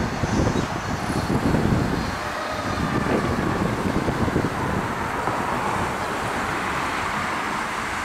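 Fire engine responding through street traffic, its engine and road noise heard as it pulls away, with a faint siren wailing slowly up and down. Wind buffets the microphone in low gusts.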